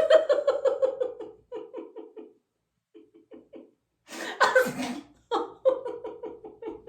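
A woman doing a laughter-yoga sneezing laugh: a run of rhythmic 'ha-ha-ha' laughter that slowly falls in pitch and fades. About four seconds in comes a mock sneeze ('achoo') that turns straight back into laughter.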